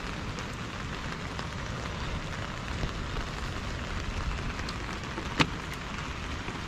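Heavy rain falling steadily, with one sharp knock about five seconds in.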